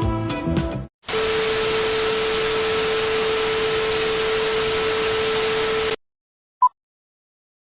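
Music cuts off about a second in, then a steady static hiss with a steady hum tone under it runs for about five seconds and stops abruptly. Near the end comes a single short, high beep.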